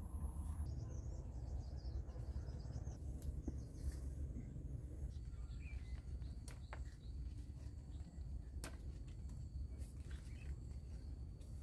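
Outdoor field ambience with a low rumble, a few sharp clicks and rustles as yardlong bean pods are picked from leafy vines, and a short bird chirp about six seconds in. A faint steady high insect whine starts about five seconds in.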